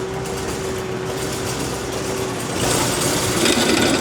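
Diesel engine of a compact piece of heavy equipment running steadily, heard from inside the cab with a steady hum, then getting louder with added rattling about two-thirds of the way through as the machine works harder.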